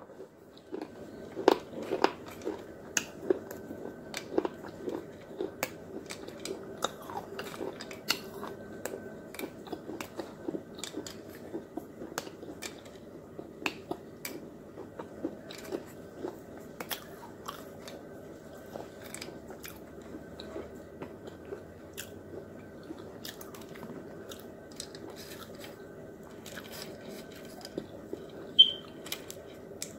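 Crunching and chewing with many sharp little snaps and cracks as brittle pieces are broken apart by hand and bitten. A faint steady hum lies underneath, and a short high squeak comes near the end.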